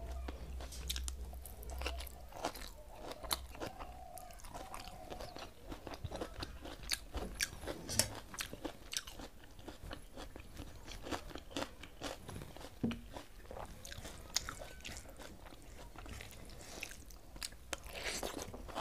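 Eating rice by hand from a steel plate: fingers mixing and scooping rice and fried vegetables, moong dal tipped from a small steel plate onto the rice about ten seconds in, and mouth chewing, all making many small clicks and crunches.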